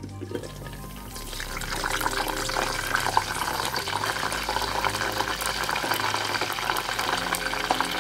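Whole pomfret deep-frying in hot oil over medium heat: a dense sizzle full of small crackles, growing louder about a second in as the pot's glass lid comes off.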